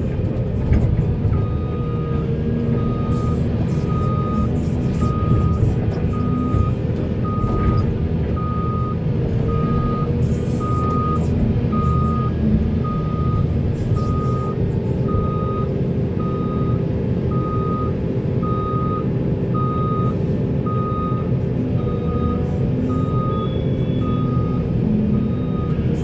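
Heavy construction machine's diesel engine running steadily under a backup/travel alarm that starts beeping about a second and a half in and repeats in an even series of single-pitch beeps.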